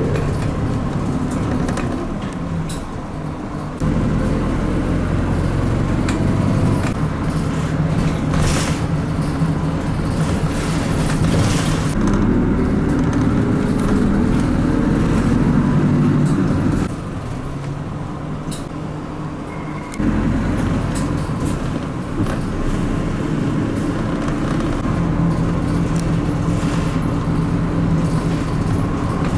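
Bus engine running and road noise heard from inside the moving bus, with a faint rising whine as it gathers speed partway through. The sound drops or jumps abruptly in level a few times.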